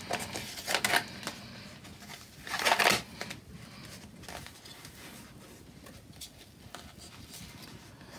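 Soft foam packaging wrap rustling and crinkling as it is unrolled by hand from around a set of glass Nixie tubes, in a few short bursts near the start and about three seconds in, then fainter handling noise.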